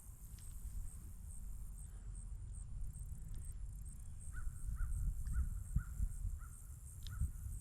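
A bird calling a series of about seven short, evenly spaced notes, roughly two a second, starting about halfway through, over a steady low rumble.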